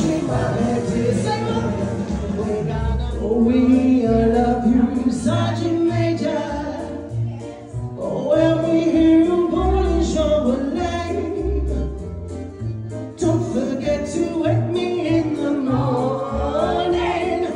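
A song sung over instrumental backing, with a bass line moving in steady notes underneath the voice.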